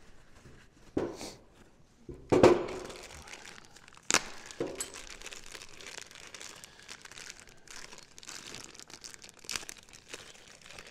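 Rustling and crinkling of hands handling parts, rags or wrapping, with a few sharp knocks; the loudest knock comes a little over two seconds in.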